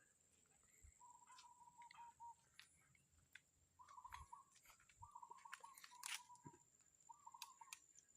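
Faint bird calls: short rattling notes repeated four or five times, over a steady high-pitched whine and a few soft clicks.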